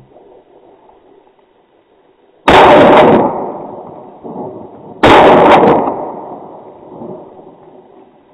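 Two shotgun shots about two and a half seconds apart, each a sharp, very loud blast that fades away over about a second.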